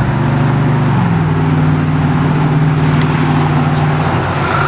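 A vehicle engine idling steadily. Its pitch steps up slightly about a second in.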